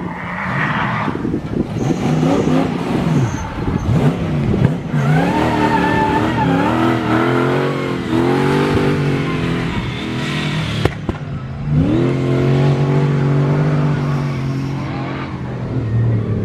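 Off-road competition buggy's engine revving hard, its pitch climbing and dropping again and again as the driver works the throttle and gears through deep mud, with tyres churning.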